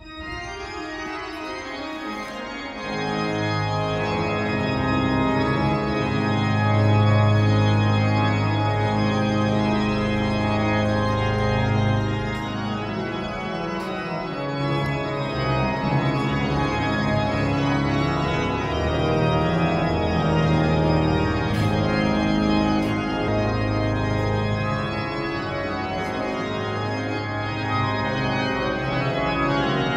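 Pipe organ playing slow, sustained chords that start suddenly and swell louder a few seconds in.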